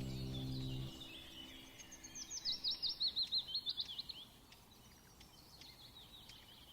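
Background music stops about a second in, then a small bird calls a quick run of high, repeated chirps, about six a second for two seconds, growing louder then fading. Faint outdoor ambience follows.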